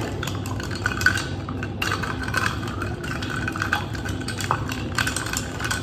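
A metal straw stirring iced coffee in a glass jar, with a quick, uneven run of light clinks as the straw and ice cubes knock against the glass.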